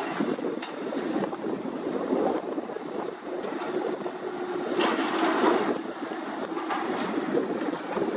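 Diesel engines of Caterpillar long-reach tracked excavators running steadily under load as they dig, with a few sharp knocks and a louder burst of noise about five seconds in.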